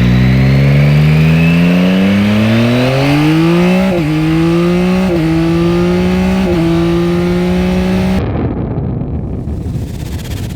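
Yamaha Tracer 9 GT's CP3 three-cylinder engine revving up, its pitch rising for about four seconds, then holding nearly steady with three brief dips. About eight seconds in the engine note gives way to a rough rushing noise.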